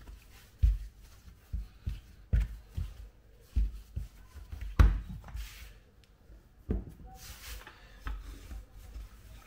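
Kitchen handling sounds from dough and utensils being worked on a counter: a string of irregular soft knocks, the loudest about five seconds in, with brief rubbing and rustling between them.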